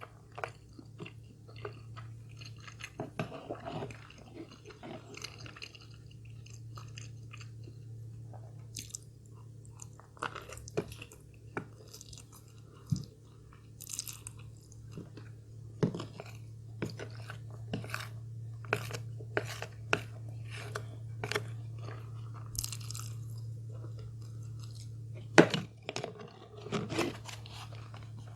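Close-up eating sounds: a person biting and chewing food, with scattered crisp crunches and the loudest crunch about 25 seconds in, over a steady low hum.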